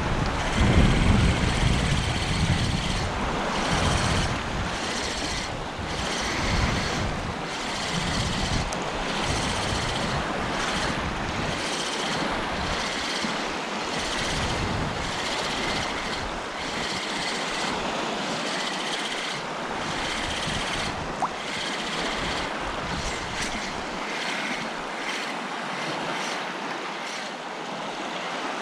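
Small waves lapping in shallow coastal sea water, with wind buffeting the microphone during the first few seconds.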